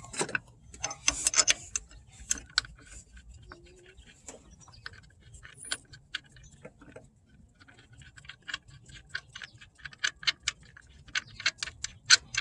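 Ratchet wrench clicking in irregular runs of quick ticks as bolts are turned in, with brief pauses between runs.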